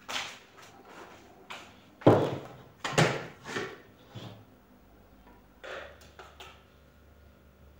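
Kitchenware handled and set down on a wooden table, including a plastic food-processor bowl: a string of knocks and thuds, the loudest two about two and three seconds in, then a few lighter clicks around six seconds in.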